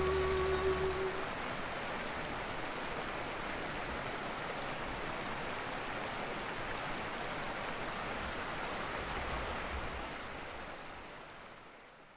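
Steady rush of flowing water, even and without tones, fading out over the last two seconds. Background music ends about a second in.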